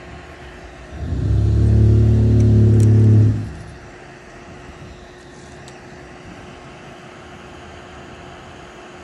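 Hot-air gun blowing steadily onto a remote control's circuit board while a chip is worked off it with tweezers. About a second in, a loud, steady low-pitched hum comes in for about two and a half seconds, then stops.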